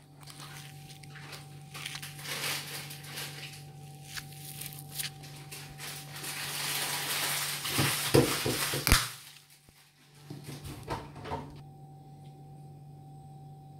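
Dry, fibrous coconut husk crackling and tearing as a metal tool pries it away from the shell. The sound builds to its loudest tearing, with a few sharp snaps, about eight to nine seconds in. After a short pause there are a few more crackles, and then it stops.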